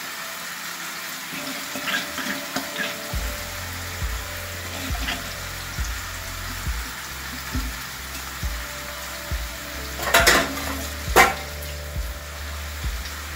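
Masala-coated sardines frying in oil on a hot cast-iron dosa tawa, sizzling steadily with frequent small crackles. Two louder sharp noises come about a second apart, a little after ten seconds in.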